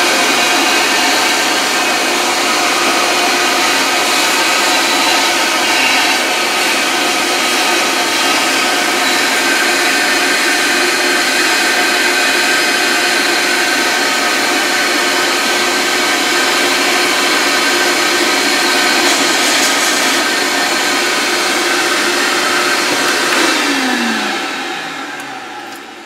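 Shop vac running with a steady whine as its nozzle sucks debris off a boiler's stainless steel mesh burner. Near the end it is switched off and the motor winds down, falling in pitch.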